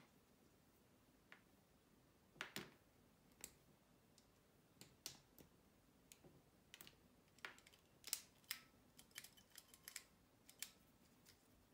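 Light, scattered clicks and snaps of LEGO SPIKE Prime plastic parts being handled and fitted together, with a quicker run of clicks a little past the middle.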